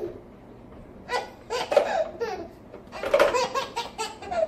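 A baby laughing in two bouts, the first starting about a second in and the second about three seconds in.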